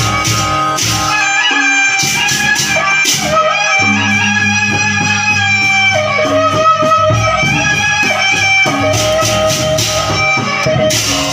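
A suling bamboo flute plays a held, sliding melody over a live traditional ensemble of drums and rattling percussion, with bursts of sharp jingling strokes.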